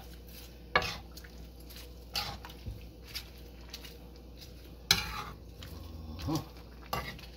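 Metal spoon stirring cabbage and carrots in a frying pan, scraping and clinking against the pan a few times. The sharpest clinks come about a second in and about five seconds in.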